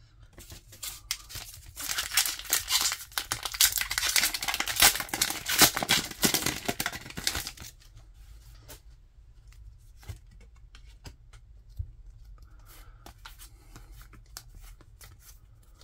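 A foil Pokémon booster pack wrapper being torn open and crinkled, loud and crackly for about six seconds. After that come soft slides and ticks of trading cards being leafed through in the hands.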